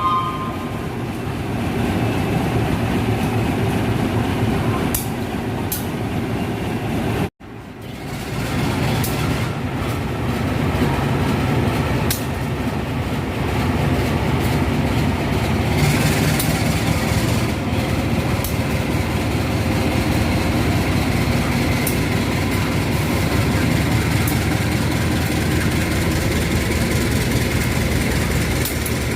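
A train running, a steady low rumble with occasional sharp wheel-on-rail clicks. It cuts out for an instant about seven seconds in, then continues.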